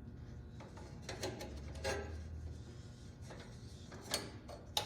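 Small metal parts of a garden tractor light switch being handled and fitted together: a few scattered clicks and light rattles, the two sharpest near the end.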